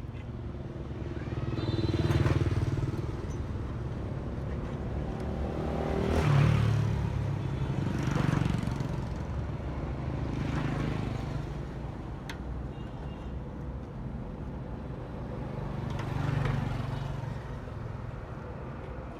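Small petrol engines running, with a steady low hum and about five swells of louder engine noise that rise and fall over a second or two each.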